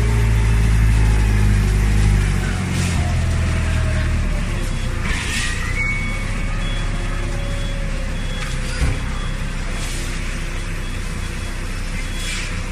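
Hydraulic scrap metal baler running. A strong low hum drops away about two and a half seconds in, with a few sharp metal knocks through the rest.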